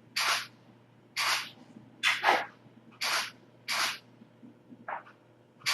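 Camera shutter sound, repeated as photos are taken in quick succession: about seven short, crisp 'shk' bursts, roughly one a second.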